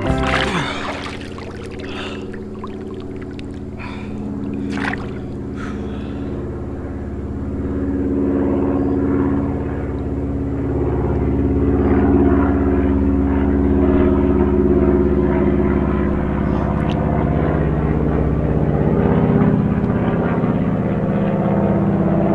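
A falling whoosh, then a loud, low rumbling drone of several held tones that swells louder toward the middle and holds steady, with a few faint clicks in the first seconds.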